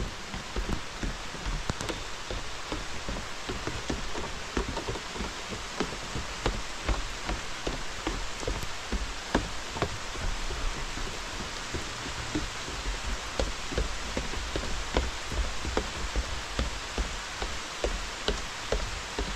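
Heavy rain falling: a steady hiss with many sharp, irregular drop taps close by.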